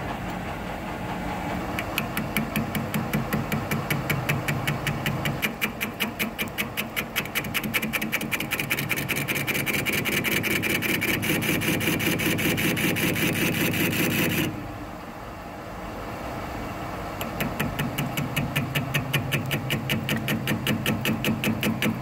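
Hafco TM-1740G metal lathe turning a rusty pin spacer, the tool cutting it with a rhythmic pulsing that repeats about four times a second. Just past the middle the cutting noise drops back for about two seconds, then resumes.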